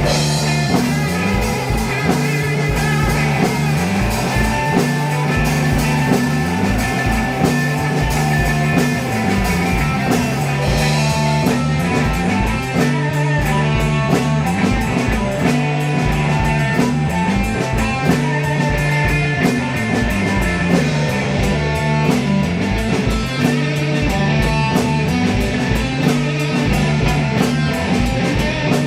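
Psychedelic rock jam: electric guitar over a repeating bass line and a steady drum-kit beat.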